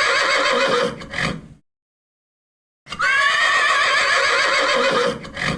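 Horse whinnying twice, each a loud, quavering neigh. The first ends about a second and a half in, and the second starts after a gap of about a second.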